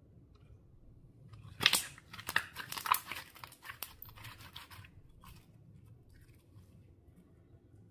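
Clear slime being squeezed and worked by hand, giving a burst of crisp crackling and clicking pops that starts about a second and a half in and dies away about three seconds later.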